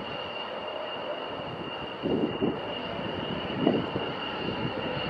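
F-16 fighter jet engine heard at a distance as the jet climbs away after takeoff. It is a steady rumbling jet noise with a thin high tone above it, surging louder about two seconds in and again near the end.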